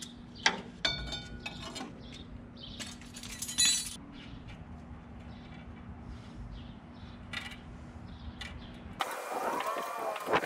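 Metal tools and brake-line fittings clinking and clanking under a truck's rear axle during a brake-line repair: a sharp click, then a ringing metallic clink about a second in, and another bright ringing clink around three and a half seconds in.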